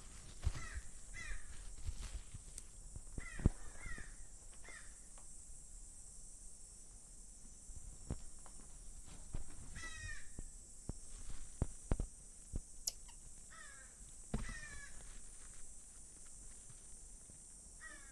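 Common marmosets calling: short bursts of two to four quick, high chirps, each falling in pitch, repeated every few seconds. Occasional knocks and bumps sound close to a small microphone.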